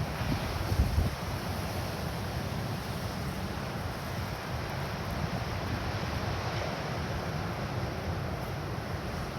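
Strong wind buffeting the microphone in a gusty low rumble, with a louder gust about a second in, over the steady wash of small surf breaking.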